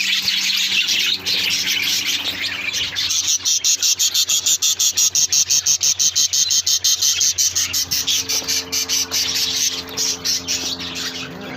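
Small aviary birds chirping and chattering. From about three seconds in, a rapid, even, high trill of about six pulses a second runs for several seconds, with a low steady hum underneath.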